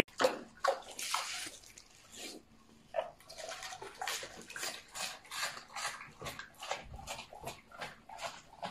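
A pig chewing hand-fed greens, munching in a steady run of about three chews a second.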